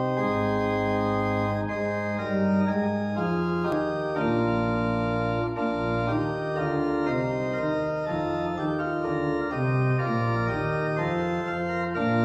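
Organ music: slow held chords over a bass line, the chords changing every second or two.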